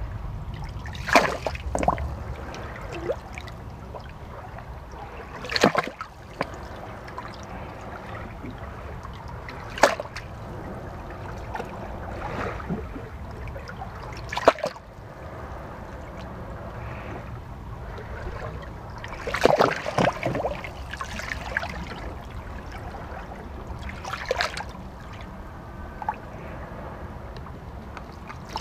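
Seawater washing over shoreline rocks, with sudden splashes every few seconds as small waves break into the crevice and water trickles off the rock, over a steady low rumble.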